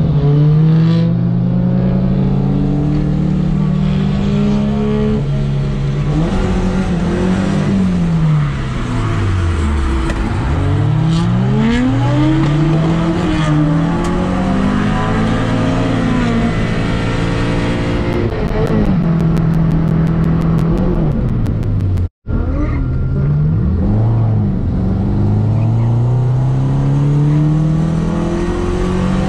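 Toyota KE70 Corolla's 7A-GE four-cylinder engine heard from inside the cabin, revving up and down again and again as it is driven hard on track. The pitch falls low once about a third of the way through, and the sound cuts out for a moment near three-quarters through.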